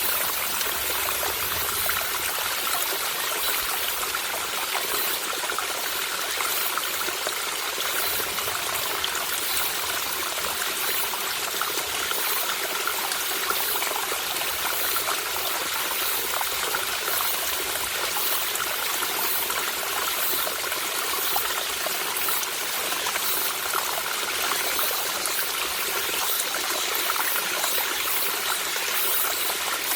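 Small mountain stream trickling and babbling over rocks in a steady, unbroken rush of water.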